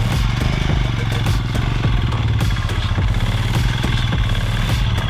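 Royal Enfield Himalayan's single-cylinder engine running steadily at low revs, a close, even beat with no revving.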